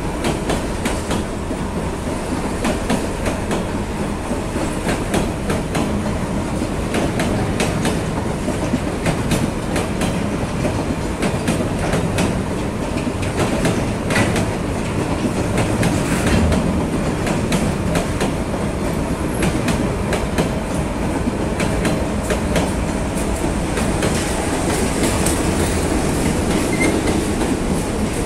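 Freight train wagons rolling past at close range: a steady rumble with the clickety-clack of wheels over rail joints.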